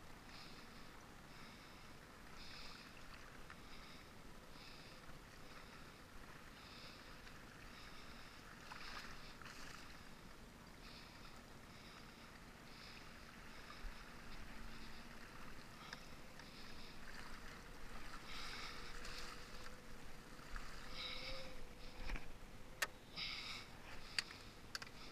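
Faint water splashing and lapping around a small fishing boat, with a few sharp knocks of gear in the boat near the end.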